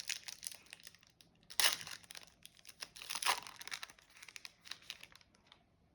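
A trading card pack's foil wrapper being torn open and crinkled, with a loud rip about a second and a half in and another about three seconds in, the crackling thinning out near the end.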